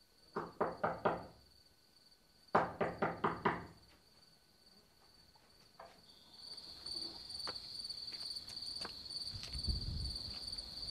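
Two quick runs of sharp knocks, four and then about six, followed from about six seconds in by crickets chirping steadily in a high, pulsing trill.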